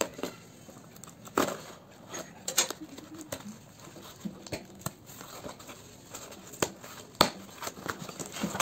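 A cardboard parcel sealed with black packing tape being opened by hand: a knife slits the tape at the start, then the taped flaps are pulled and torn open, giving scattered crinkles, scrapes and a few sharp clicks.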